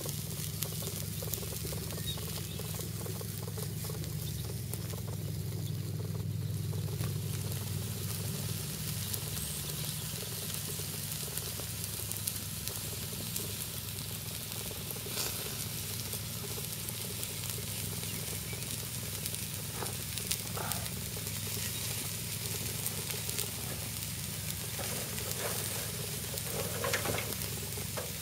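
Chicken pieces sizzling on a wire grill grate over an open fire, with scattered pops and crackles. There is a low rumble during the first eight seconds or so.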